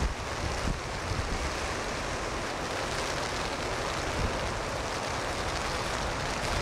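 Strong wind buffeting the microphone over the steady rush of heavy surf breaking in a storm.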